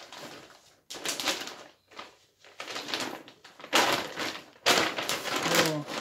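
Glossy plastic shopping bag rustling and crinkling as it is unfolded and shaken out: a run of short crackly bursts, louder in the second half.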